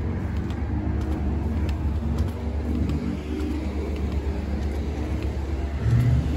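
City road traffic: car engines running and moving at an intersection, over a steady low rumble.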